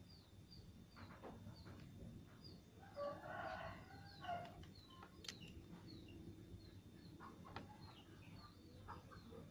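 A rooster crows once, about three seconds in, a single call lasting about a second and a half. Faint high chirps repeat about twice a second, with a few soft clicks from hands handling a sewing-machine belt and thread.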